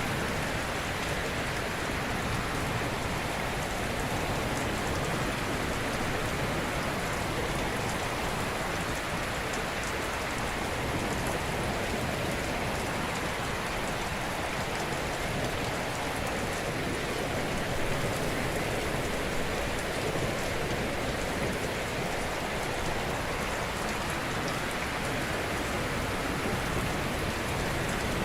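Ocean waves breaking gently on a shore: a continuous hiss of surf, with only slight rises and falls in loudness.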